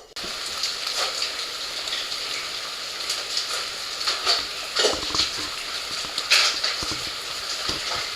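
Steady soaking rain falling, with many close drops splashing in sharp ticks and a few louder splashes.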